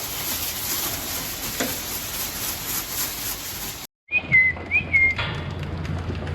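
A steady hiss, then after an abrupt cut a short whistle of about a second that dips, rises and settles on one note, over a steady low hum.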